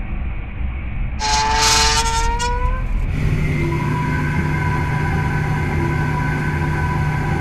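Dark sound-design soundtrack. A low rumble runs under a shrill, whistle-like tone with hiss; the tone starts about a second in, rises slightly for about two seconds and stops. After that comes a steady drone of held humming tones, with a soft blip about every two seconds.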